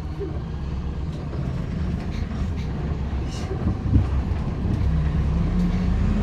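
Bus engine running with road rumble, heard from inside the passenger cabin, growing louder as the bus picks up speed. There is a single brief thump about four seconds in.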